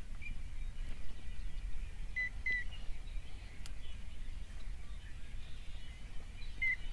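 A few short, high whistled bird chirps, one at a time and one quick pair, over a steady low rumble of wind on the microphone.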